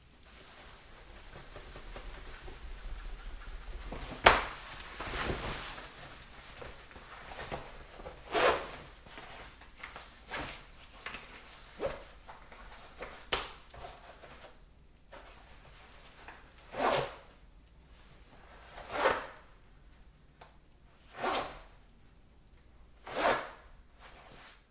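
A person urinating into a toilet bowl in a small bathroom. The stream builds over the first few seconds, a sharp knock comes about four seconds in, and then short splashing spurts follow about two seconds apart.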